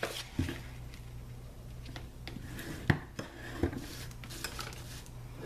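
Card stock being folded and creased with a bone folder on a tabletop: paper handling with several light, sharp taps.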